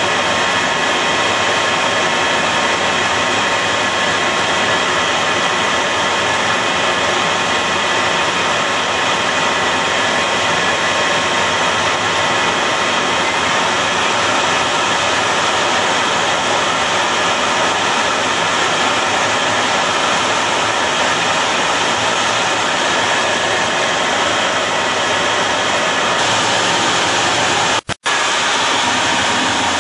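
F-14 Tomcat's jet engines running steadily, heard inside the cockpit as a loud rushing noise with a thin whine through it. About 26 seconds in it turns brighter and harsher, and near the end, at the catapult launch, it cuts out for an instant and comes back.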